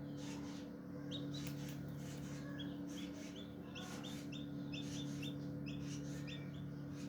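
Shamo Aseel chick peeping during hatching: short high chirps, a pair about a second in, then a quick run of them, over a steady low hum.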